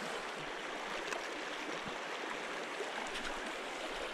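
Shallow stream running steadily, an even rush of flowing water.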